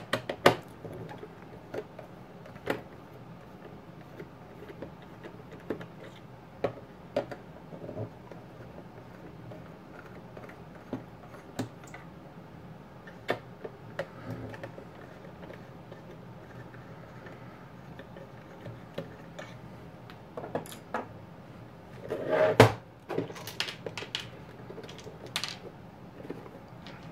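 Small clicks and taps of a screwdriver backing out the screws of a plastic multimeter case, and of the screws being set down. Several louder knocks near the end as the case is picked up and turned.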